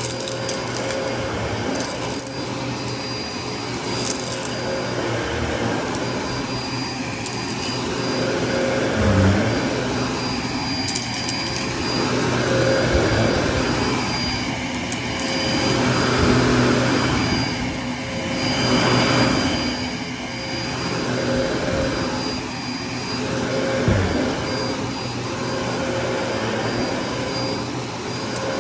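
Dyson DC33 upright vacuum cleaner running, its steady motor whine under a rush of airflow that swells and fades every few seconds as it is worked back and forth. A few sharp clicks break in.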